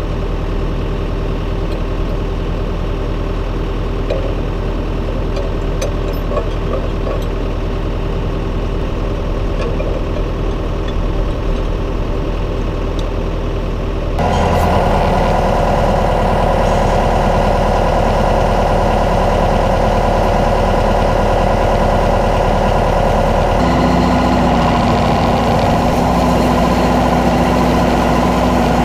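Tractor diesel engine running steadily with field machinery in tow. About halfway through it abruptly gets louder and fuller, then holds steady.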